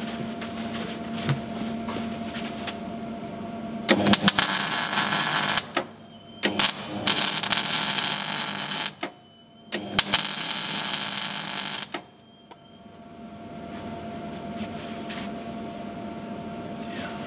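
MIG welder tack-welding a steel bracket onto a steel boat hull: three bursts of steady crackling hiss, each about two seconds long, with a steady machine hum between them.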